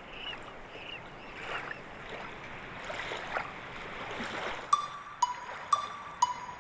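Water rail squealing from the reeds: several harsh, falling squeals over a soft watery background. Plucked-note music starts about three-quarters of the way through.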